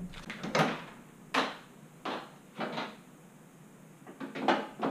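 A series of short clunks and knocks, about five spread over a few seconds, as the hood of a Ford Mustang Shelby GT350 is unlatched and lifted open.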